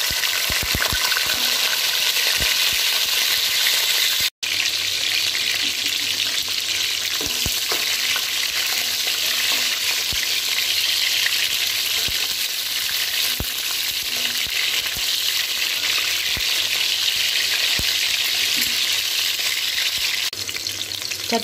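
Whole small brinjals (baby eggplants) sizzling as they fry in hot oil in a metal pan: a steady loud hiss with scattered clicks and scrapes of a spatula stirring them. The sound cuts out for a split second about four seconds in.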